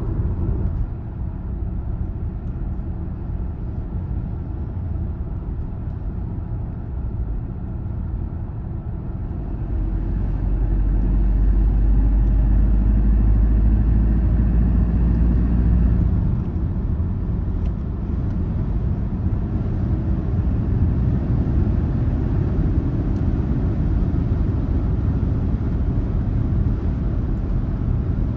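Car driving along the road: a steady low rumble of engine and tyres. It grows heavier for about six seconds near the middle, then drops back suddenly.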